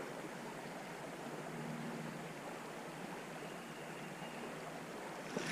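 Steady, faint hiss of creek water flowing, with a single light click near the end.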